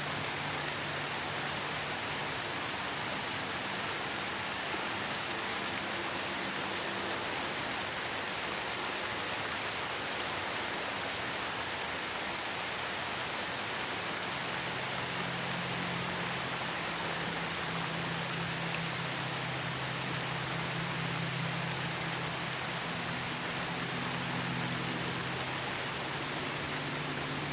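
Steady, even rain hiss, blended with soft sustained low tones of an ambient drone that shift pitch slowly every several seconds.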